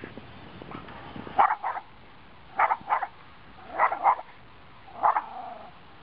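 Small Schnorkie (schnauzer–Yorkshire terrier cross) dog barking at a remote control boat: about seven short barks, mostly in quick pairs about a second apart.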